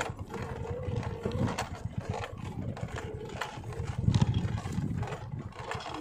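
Motorcycle engine running at low speed over a rough, rocky dirt trail, with scattered knocks and rattles over the rumble, a little louder about four seconds in.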